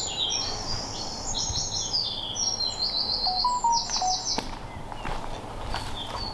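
A small songbird singing: rapid, high trilled phrases one after another, with a short break a little past the middle before it starts again more quietly.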